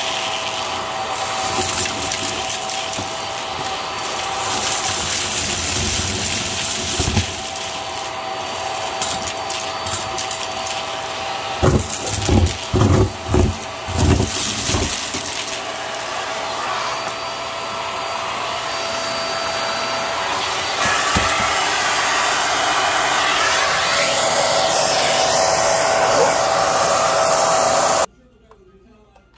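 Hart vacuum cleaner running, sucking a pile of sequins, buttons, glitter and deflated balloons off carpet through its hose wand. About halfway through there is a short run of loud low thuds as balloons are pulled into the hose. The sound cuts off abruptly near the end.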